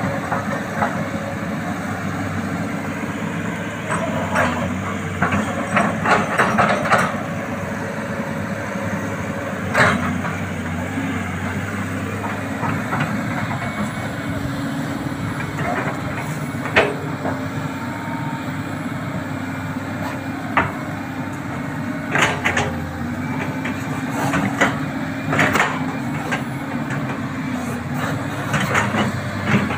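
Sany SY215C hydraulic excavator's diesel engine running steadily under load as it digs, with repeated sharp metal clanks and knocks from the bucket and boom working, several coming in quick clusters.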